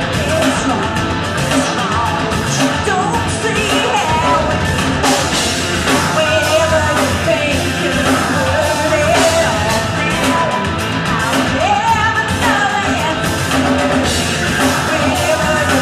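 Live rock band playing: a woman sings lead, at times close to yelling, over electric guitars and a drum kit with cymbals.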